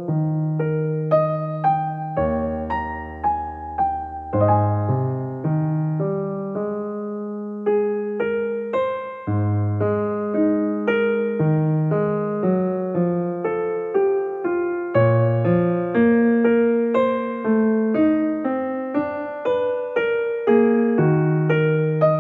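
Background piano music: a melody of single notes, each fading after it is struck, over low bass notes.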